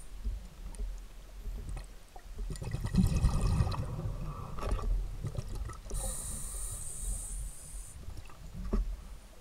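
Scuba diver breathing through a regulator underwater. A rush of exhaled bubbles comes about three seconds in, and the hiss of an inhaled breath comes from about six to eight seconds in.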